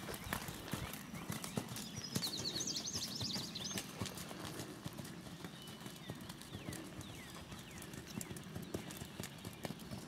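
Hoofbeats of a barefoot Tennessee Walking Horse on sand footing, a steady, even run of soft thuds as it moves at a walking gait.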